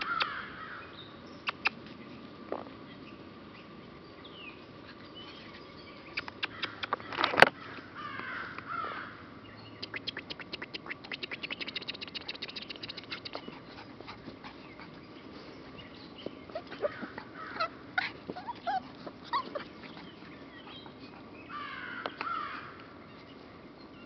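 Crows cawing, a short string of harsh caws three times over. In between come scratchy clicks and a fast run of scraping ticks from puppies digging in dry dirt, and one sharp click, the loudest sound, about seven seconds in.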